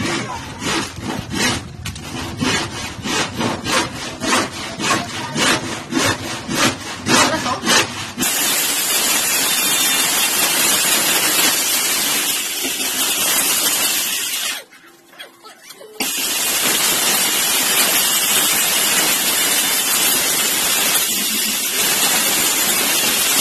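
Plywood being sawn by hand, in regular strokes about two to three a second. About eight seconds in, a corded circular saw takes over, cutting through the plywood sheet with a steady, dense noise that cuts out briefly about halfway and then runs on.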